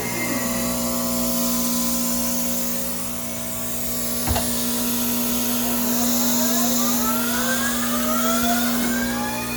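Fuji Sanki double disk grinder running, a steady electric hum with several machine tones over it. There is a sharp click about four seconds in, and over the last few seconds rising whines come in as a part spins up.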